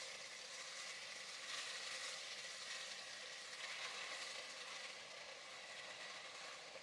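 Seasoned chicken thighs frying in hot olive oil in an enamelled cast-iron pot, a steady sizzling hiss as they begin to brown.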